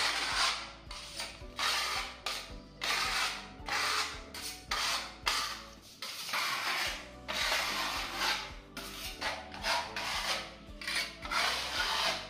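Flat putty spreader blade scraping across a plaster wall, spreading a wet paste of plaster of Paris and wall putty in repeated back-and-forth strokes, about one or two a second.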